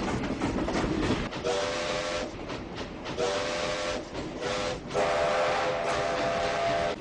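Train whistle sounding a chord of several notes in blasts, two shorter ones and then a long one in the last two seconds, over the running noise of a train.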